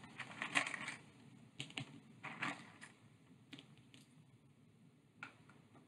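Wooden craft sticks clattering as they are sorted out of a plastic storage tray and set down on a table: quick clusters of light clicks in the first three seconds, then a few single taps.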